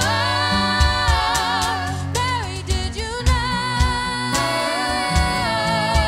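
A female lead singer holds long, wordless notes with vibrato over a band. Steady bass notes and a cajón beat are heard beneath her.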